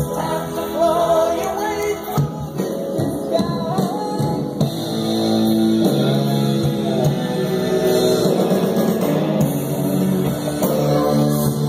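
A song with singing and instruments, played from a vinyl record on an Akai AP-D2 turntable through a Sansui 4000 receiver and JBL J2050 loudspeakers.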